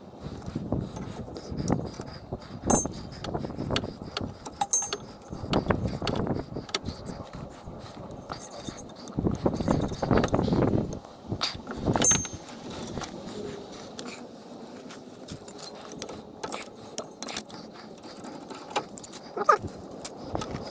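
Small metal parts and hand tools clinking and rattling as they are handled, with scattered sharp clicks, scrapes and a few short metallic rings, as a flare nut is taken off an old brake line.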